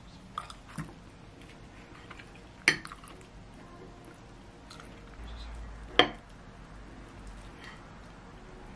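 Metal fork and chopsticks clinking against a ceramic bowl: a few light taps, then two sharper clinks about three seconds apart.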